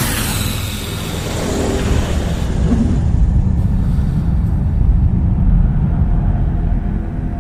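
Science-fiction spaceship sound effect. A passing whoosh fades in the first couple of seconds, then a deep, steady engine rumble takes over.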